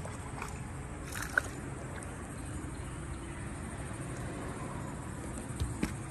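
Steady low rumble of open-air ambience around a small fishing boat, with one sharp click about a second and a half in and a few lighter clicks near the end.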